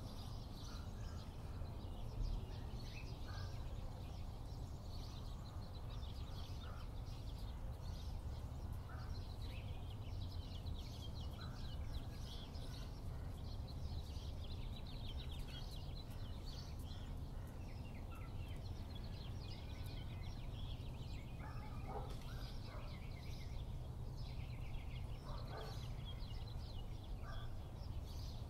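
Outdoor ambience of birds: many short high chirps and twitters throughout, with a few lower calls late on, over a steady low rumble.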